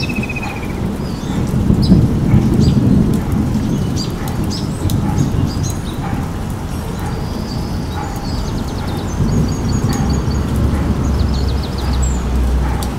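Birds chirping with short high calls and a few quick trills over a steady low rumble.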